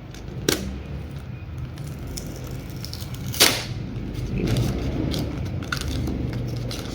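Small cardboard model-kit box being pressed open by hand: a sharp click about half a second in and a louder snap of the card about three and a half seconds in, followed by rustling and small ticks of the packaging being handled.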